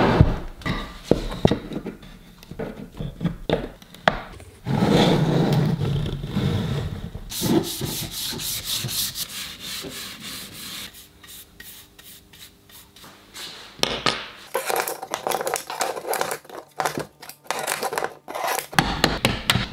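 Rubbing and wiping on MDF and acrylic pieces with a cloth, in several stretches, with scattered knocks and clicks as the parts are handled and fitted together.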